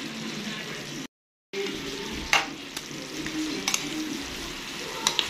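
Coconut milk bubbling and sizzling in a pan with chunks of tuna, with a few sharp clicks. The sound drops out briefly about a second in.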